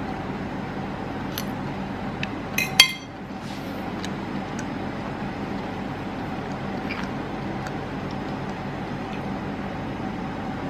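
A metal fork clinks once against a ceramic plate about three seconds in, with a brief ring. A few lighter taps of tableware come before and after it, over a steady background hum.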